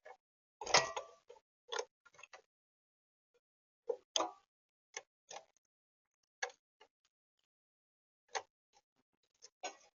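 Irregular sharp taps and knocks on a camera bird feeder, typical of birds pecking at the seed tray and hopping about. The loudest is a heavier thump about a second in.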